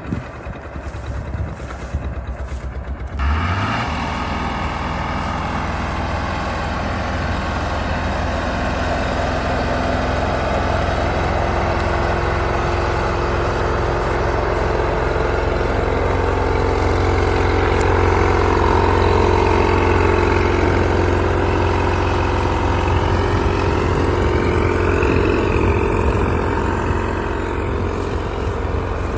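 Clayson 8080 combine harvester running, its engine and threshing machinery making a dense, steady drone. For about the first three seconds the sound is lighter and pulsing, then it turns abruptly louder and fuller.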